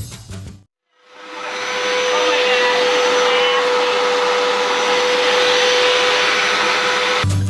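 Hoover Carpet Basics Power Scrub Deluxe carpet washer's motor starting, winding up over about a second, then running steadily: a loud suction rush with a single steady hum over it. It cuts off suddenly near the end.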